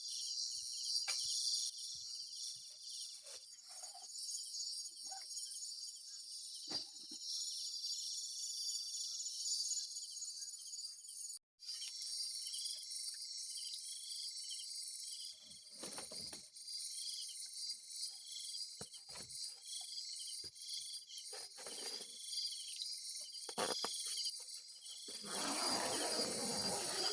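A dense chorus of night insects, crickets among them, chirping and trilling steadily at a high pitch. After a momentary break about halfway through, a slower call repeats about once a second. Scattered rustling and handling noises occur, with a louder stretch of rustling near the end.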